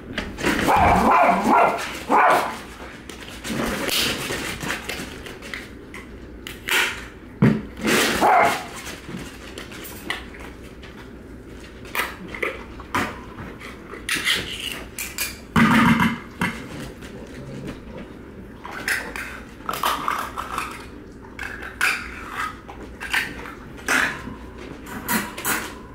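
Several dogs barking in short, irregular outbursts, with sharp clicks in between.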